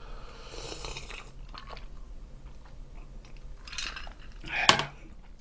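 Cola drunk from a glass in sips and swallows, with small clicks, then the glass set down on the table with one sharp knock near the end.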